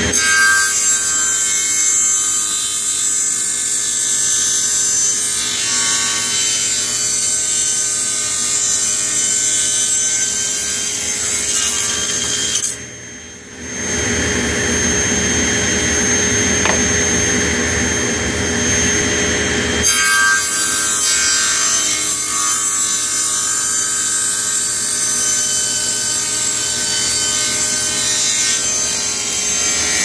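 Portable table saw running with a steady high whine as its blade rips thin wooden strips for a roof. The level dips briefly about 13 s in, followed by a lower, rougher stretch of several seconds before the whine returns.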